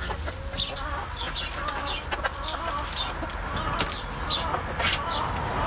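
Hens clucking in short, repeated calls, about two a second, while a digging fork is worked through compost, with a few sharp clicks from the tines.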